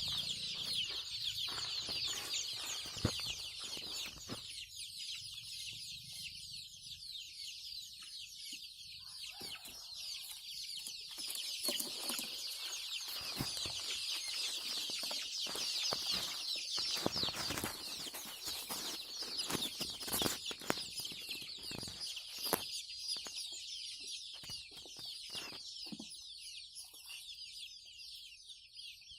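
A large flock of chickens in a poultry house calling all at once: a dense, continuous chorus of high, short calls, with scattered small knocks.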